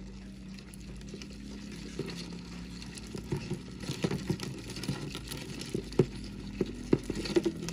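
Horned beetles' claws scratching and clicking on a plastic tub as they crawl over one another: irregular light clicks and scrapes that grow busier and louder from about two seconds in, with a few sharper clicks near the end.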